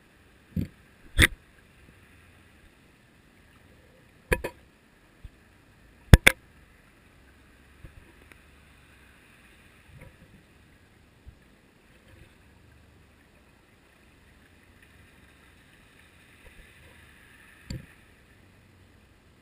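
Sharp knocks and clicks from a GoPro in its waterproof housing, tied to a lead cod jigger and jerked up and down on a hand line underwater. A faint steady water hiss lies between them. There are two knocks about a second in, a pair a few seconds later, a loud double knock about six seconds in, and one more near the end.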